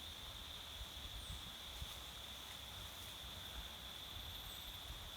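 Insects shrilling in one steady high-pitched drone, over a faint even rush of river water and a low rumble.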